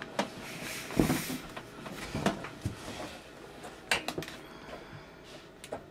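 Hands threading a plastic PVC union nut onto a brass pipe fitting: a few light knocks and clicks of plastic on metal, with a brief rustle about a second in.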